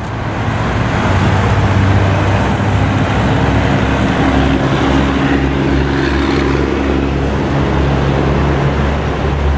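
Dense city road traffic: cars and large trucks running in slow traffic, a steady noise with the low hum of big engines underneath.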